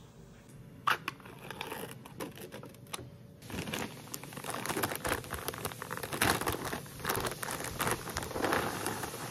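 A crinkly plastic granola bag rustling and crackling as it is handled, starting about three and a half seconds in. Before that there are a few light knocks, including one sharp click about a second in.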